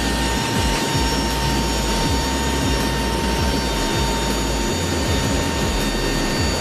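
KC-130J Hercules turboprop engines running, a steady loud drone with a constant high whine over a low rumble, heard from inside the cargo hold with the rear ramp open.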